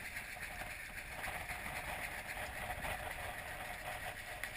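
Steady rush of wind and water aboard a Swan 45 sailing yacht under way in strong wind, with wind rumbling on the microphone.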